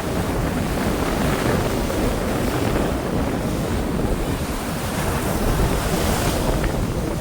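Sea waves breaking on a beach in a steady wash, with wind gusting and buffeting the microphone.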